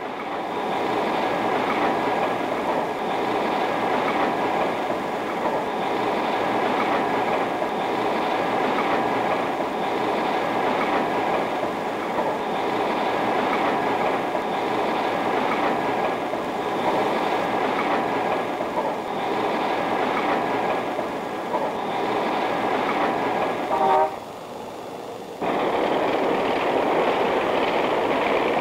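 Steady clattering of running machinery on an old film soundtrack. Near the end a short pitched blip sounds, the clatter drops out for about a second and a half, then starts again.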